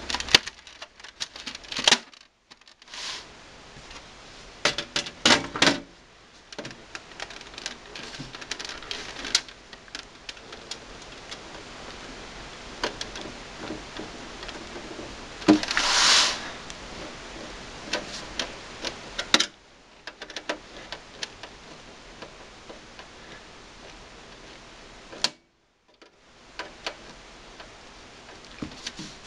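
Clicks, taps and clatter of a desktop computer case being put back together: the plastic front bezel snapped on and the sheet-metal side panel fitted and fastened. About halfway through there is a louder rasp lasting about a second.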